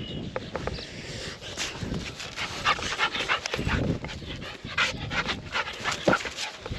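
A dog panting: a run of short, quick breaths.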